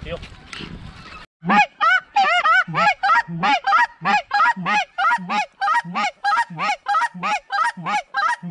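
Goose call blown at a flock: loud, rapid, evenly spaced honks, about three a second, each breaking from a low note up to a high one. They start abruptly about a second in, after a stretch of wind-like noise.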